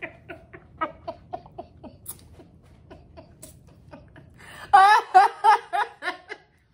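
A woman laughing: soft, quick pulses of laughter that taper off, then a louder burst of laughter about five seconds in.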